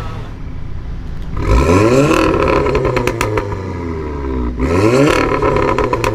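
Engine with a modified exhaust revved hard twice, each rev climbing quickly and falling back, with a rapid crackle of exhaust pops as the revs drop off.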